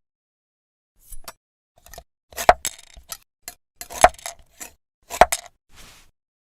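A series of about a dozen sharp, irregular clicks and clinks of small hard objects, starting about a second in, a few louder ones with a short ring.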